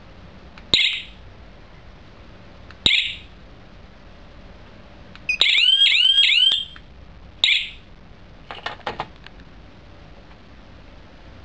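GSM wireless alarm system beeping in response to key-fob remote button presses: two short high beeps a couple of seconds apart, then a rapid run of about five rising chirps lasting about a second, then one more beep. A few light clicks follow near the end.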